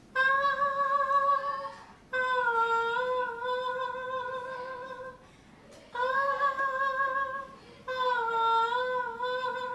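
A woman singing unaccompanied in a high voice: four long phrases of drawn-out, slightly wavering notes, separated by short breaths.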